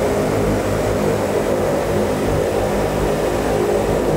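De Havilland Canada Dash 8-200's twin Pratt & Whitney Canada PW123 turboprop engines and propellers running steadily while taxiing, heard from inside the cockpit as an even drone with a steady propeller hum.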